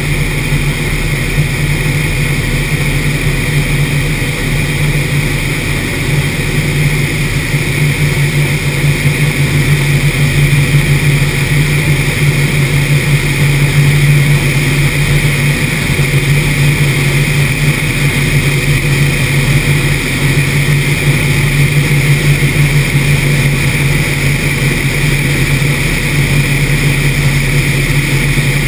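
P-51 Mustang's V12 engine running steadily in flight, heard from the cockpit as a loud, unbroken drone mixed with rushing air. It swells slightly in the middle.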